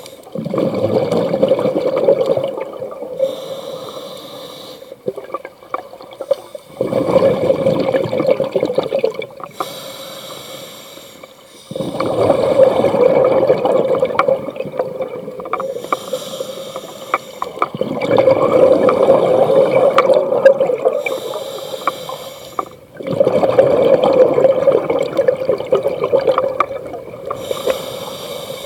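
Scuba diver breathing through a regulator underwater: five long surges of exhaled bubbles gurgling out, each lasting a few seconds, with quieter inhalations between.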